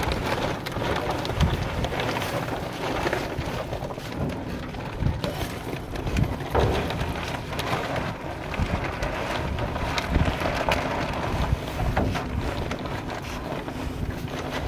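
Granular fertilizer pouring out of plastic sacks into a large tub: a steady hiss of granules falling onto the heap, with many small ticks, and the sacks rustling as they are handled.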